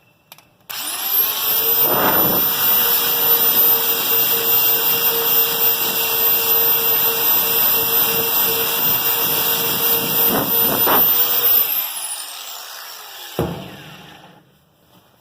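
Electric grinder switched on, running at high speed with a steady high whine while grinding down the rubber around the sidewall cut to roughen it for a patch, with a few brief harsher bursts as it bites. Switched off near the end, winding down with a falling whine.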